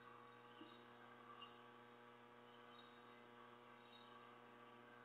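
Near silence: a faint, steady electrical hum with light hiss on the air-traffic radio feed between transmissions.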